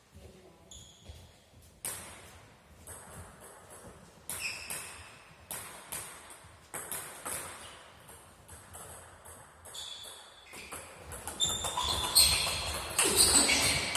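Celluloid-type table tennis ball clicking off bats and the table, echoing in a large hall. There are scattered single bounces at first, then a quick rally in the last few seconds, which is the loudest part.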